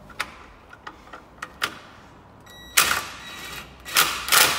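A socket on an extra-long bar winding a locator bolt into a Mini engine's timing end: a run of light metallic clicks, then a few louder rasping bursts in the last couple of seconds.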